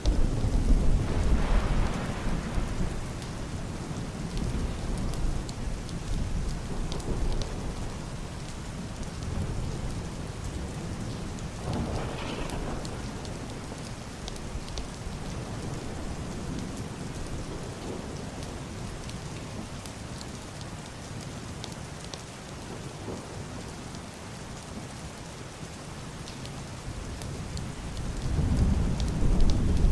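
Heavy rain falling steadily with a scatter of sharp drip ticks, under deep, muffled rolling thunder. A thunder rumble swells in the first few seconds and another near the end.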